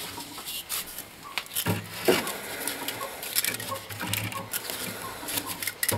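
Handling noise from a Volkswagen Golf 3 heater core being picked up and turned over: a scatter of small irregular clicks, taps and rattles from its plastic end tank and metal fins against hands and the wooden tabletop, with two louder knocks about two seconds in.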